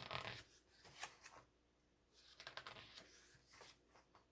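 Faint paper rustling and light clicks of an album's photo book being handled, its pages turned, in short scattered bursts.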